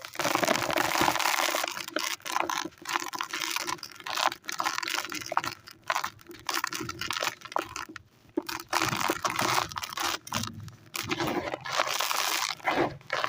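Dry white sand being crumbled, a gritty crunching and crackling that comes in bursts with brief pauses.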